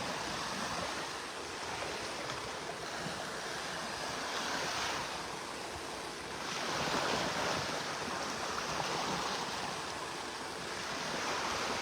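Gentle Gulf of Mexico surf washing onto the beach, swelling and easing every few seconds as small waves break.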